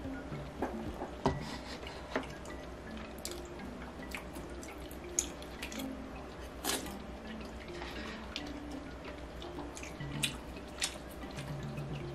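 Close-miked eating: wet chewing and slurping of rice cakes in broth, with sharp clicks of chopsticks and spoon at scattered moments. Quiet background music with short plucked notes plays under it.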